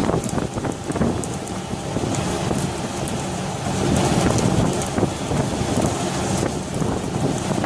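Steady rushing of wind and churning, splashing sea water, with wind buffeting the microphone and faint sharp ticks now and then.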